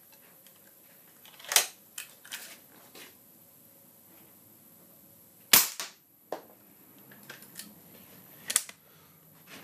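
.22 air rifle fired three times at short range into a hard disk drive, each shot a sharp crack merged with the pellet's hit, about three seconds apart. Lighter clicks and knocks come between the shots.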